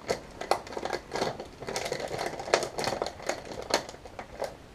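Plastic packaging of a soft-plastic fishing bait pack crinkling and crackling in irregular clicks as it is opened by hand to pull out a drop-shot bait.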